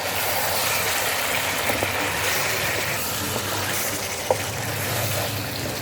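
Chicken pieces sizzling in oil and spiced masala in a kadai as they are gently stirred: a steady hiss, with a few light ticks and one sharp tap a little past four seconds in.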